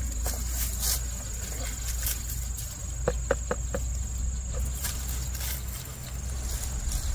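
Steady high-pitched insect drone over a low steady rumble, with four quick clicks close together about three seconds in.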